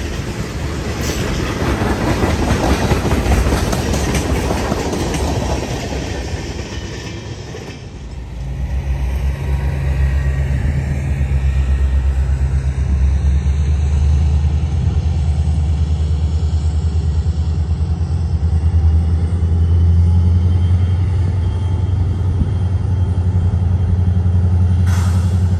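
Freight cars rolling past with a steady clickety-clack of wheels on the rails. About eight seconds in, this gives way to a steady low rumble of a distant diesel locomotive running during yard switching, with one short knock near the end.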